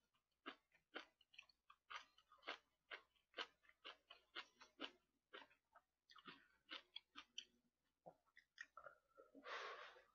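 Faint chewing of braised chicken and aged kimchi: soft, wet mouth clicks two or three times a second. A short breathy hiss near the end.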